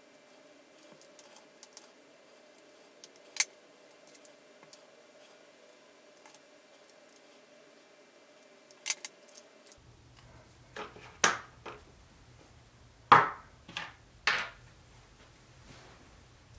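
Scattered sharp clicks and clacks of small hard-plastic kit parts and a hand tool being handled while assembling an RC car's rear suspension arms, a few sparse taps at first, then several louder clacks close together near the end.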